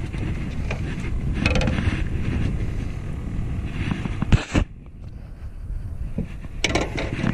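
Wind rumbling on the camera's microphone, with scattered knocks and rubbing as a dog brushes against the camera. A sharp knock comes about four and a half seconds in, then the sound goes muffled for about a second while the dog's fur presses over the camera.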